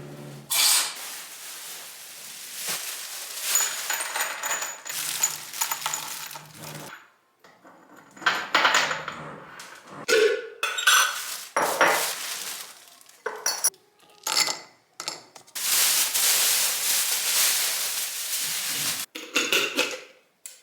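Spice jars and kitchen utensils clinking and knocking as they are handled and set down in a kitchen drawer, some clinks ringing briefly. There are a few seconds of steady noise near the end.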